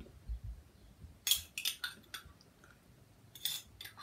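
Metal spoon clinking and scraping against a baby-food container as someone scoops and eats pear-and-banana baby food. There are two short clusters of sharp clinks, about a second in and again near the end, after a few soft low thumps at the start.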